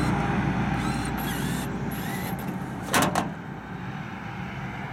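Ice vending machine's hinged metal bill flap clacking shut, a quick double clack about three seconds in. A low steady rumble before it stops about two seconds in.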